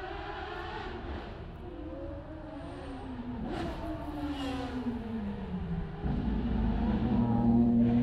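Ferrari track car engine, its note falling in pitch for a few seconds with a short crackle partway through. About six seconds in it turns louder and steadier, then starts to climb again as the car accelerates.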